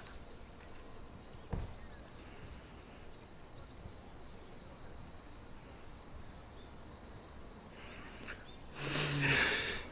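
Faint, steady high-pitched chorus of insects trilling in tall grass. A soft knock comes about a second and a half in, and a short breathy sound near the end.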